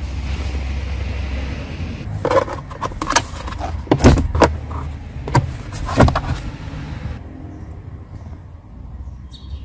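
Inside a car cabin: a low steady rumble, then a run of sharp clicks and knocks over about four seconds, a few of them loud.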